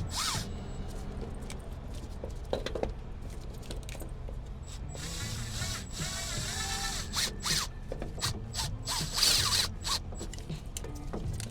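Hand tools being worked on metal: scattered ratchet clicks and clinks while a starter is fitted to a trailer refrigeration unit.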